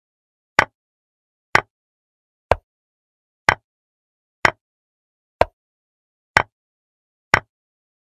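Digital chessboard's piece-move sound effect: a short sharp click for each move, about once a second, eight times, with dead silence in between.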